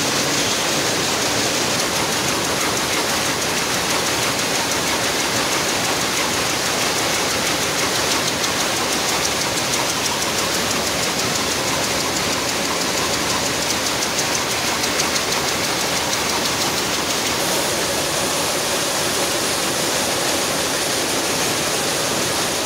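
Several Picanol GTX rapier looms running together at production speed, around 370 rpm, making a loud, steady, dense mechanical clatter with no let-up.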